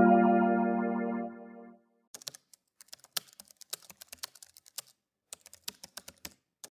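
A held electric-piano chord fades out over the first two seconds. Then comes a run of irregular computer-keyboard typing clicks, a typing sound effect for on-screen text being typed and deleted.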